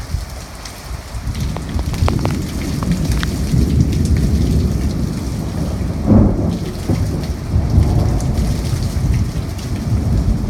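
Heavy rain falling with thunder rumbling through it; the rumble builds about a second and a half in and is loudest around the middle.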